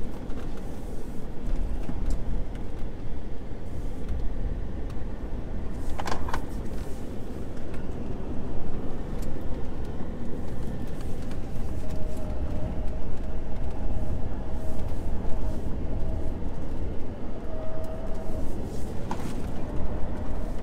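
Cabin noise inside a Ford F-150 Lightning electric pickup on the move: a steady low road and tyre rumble with a camera bag rattling, and sharp knocks about six seconds in and again near the end. A faint steady whine runs through the middle stretch.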